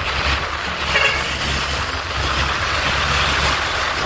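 Traffic noise heard from a moving vehicle on a main road: a steady rush of road and wind noise over a low engine rumble.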